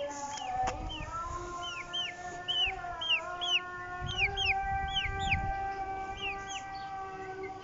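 Young fowl peeping: short high chirps, two or three a second, over a steady background hum made of several held tones.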